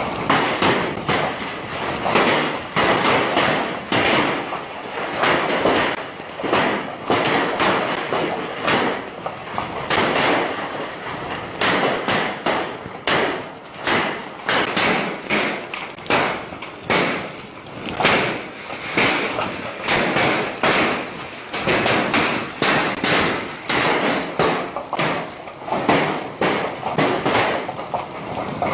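Heavy hail pelting down: a dense, continuous clatter of hailstones striking hard surfaces, swelling and easing in waves every second or two.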